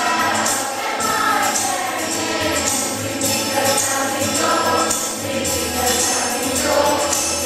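Choir singing a lively song over instrumental accompaniment, with a steady beat of jingling percussion.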